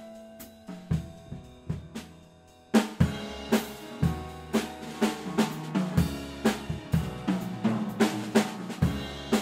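Live band of drum kit, double bass and keyboard playing; sparse and soft at first, then the full band comes in about three seconds in with a steady drum beat, roughly two hits a second.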